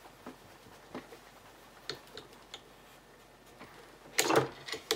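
Cleaning rod with a doubled-up patch worked through an M1 rifle's gas tube: faint scattered metal clicks, then a louder cluster of clicks and scraping about four seconds in.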